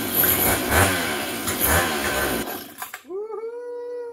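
Stihl 031AV two-stroke chainsaw engine firing on a squirt of primer and running roughly for about two and a half seconds before dying out. About three seconds in, a drawn-out pitched whine rises, holds and falls.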